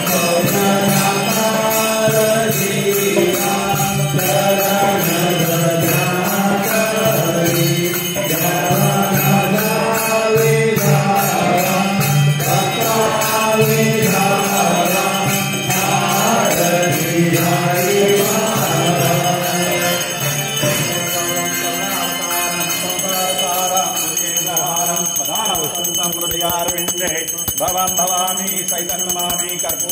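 A congregation sings a Hindu devotional aarti into a microphone, accompanied by a dholak drum. Bells ring steadily throughout, coming to the fore in the last ten seconds or so as the singing thins.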